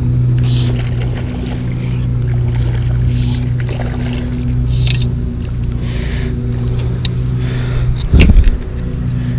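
A steady low motor-like hum, with short splashes from a hooked largemouth bass thrashing at the surface and a loud bump about eight seconds in.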